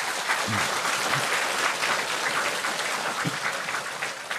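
A large audience clapping, a dense steady applause that eases off near the end.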